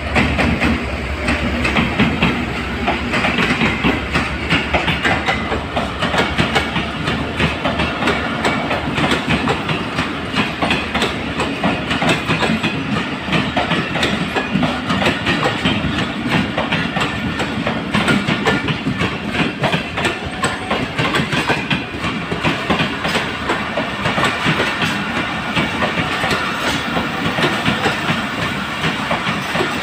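Passenger coaches of a Pakistan Railways express rolling past close by, their wheels clacking steadily over the rail joints. A low diesel-locomotive rumble fades away in the first second as the ZCU-30 locomotive passes.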